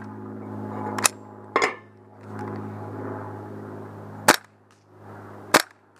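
WE ACR gas blowback airsoft rifle firing semi-auto on propane: sharp cracks with the bolt cycling, about five shots spaced irregularly, the last two the loudest.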